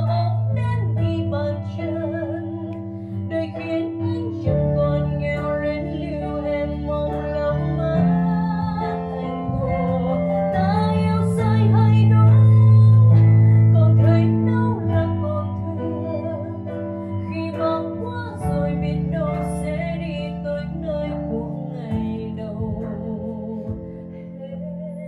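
A live band plays a slow ballad on guitar, violin and keyboard while a woman sings a held line with vibrato into a microphone. The music swells to its loudest about halfway through, then eases off toward the end.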